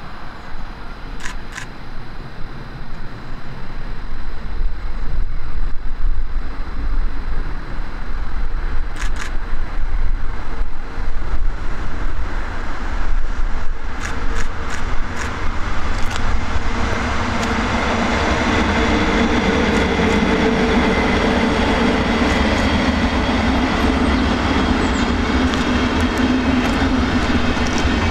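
Electric-locomotive-hauled passenger train of sleeper and couchette coaches running through at speed. A low rumble builds as it approaches, with a few sharp clicks, then from just past halfway the coaches' wheels rolling over the track give a louder, steady noise with a low hum.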